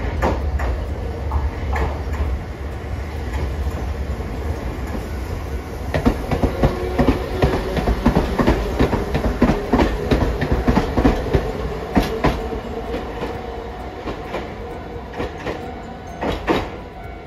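A Hiroshima Electric Railway 'Green Liner' articulated tram runs past. Its wheels clatter over the rail joints in a quick run of clicks from about six seconds in, over a steady whine, and the sound then fades as it pulls away, with a couple of last clicks near the end.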